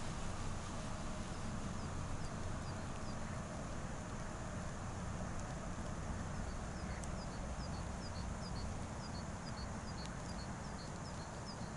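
Steady low wind rumble on the microphone over open lake ice. A small bird gives a faint run of short, high, downward-slurred chirps, a few at first, then about two a second through the second half.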